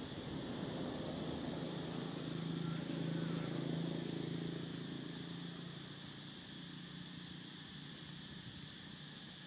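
A motor vehicle's engine hum that swells over the first few seconds and fades away after about six seconds, as if the vehicle passes by, over a steady high drone.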